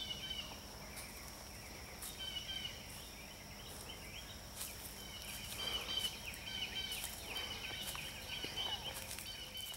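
Birds chirping in repeated short phrases over faint steady outdoor background noise, with a few soft rustles of footsteps in dry leaf litter.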